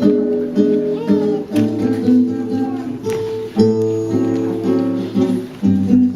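Acoustic guitar music: strummed chords that change every second or two.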